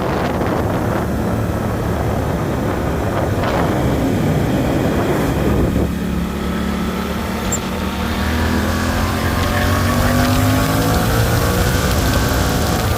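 Suzuki GSX-8S's 776 cc parallel-twin engine running through its stock exhaust. Over the last several seconds its pitch climbs steadily as it gathers revs.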